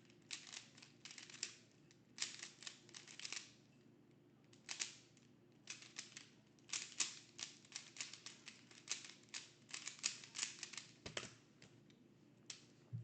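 A Rubik's Cube being turned fast during a speedsolve: quick flurries of plastic clicking, broken by short pauses while the solver looks for the next step. One duller knock comes near the end.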